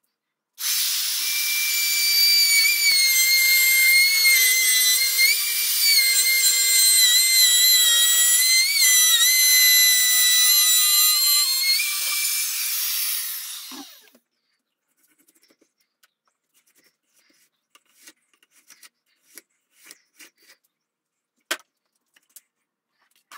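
Hand-held electric router cutting the barrel groove along a wooden rifle-stock blank: a high whine that starts suddenly, wavers in pitch as the bit bites into the wood, then is switched off about 12 seconds in and winds down over about two seconds. A few light clicks and knocks follow as the router is handled.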